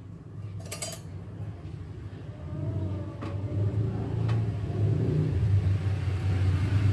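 Low rumble of a running motor vehicle engine, growing steadily louder, with a few light clicks of kitchen utensils.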